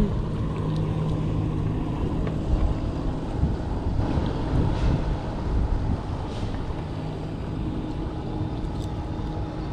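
Outboard motor of a small passing motorboat running with a steady drone, with wind buffeting the microphone.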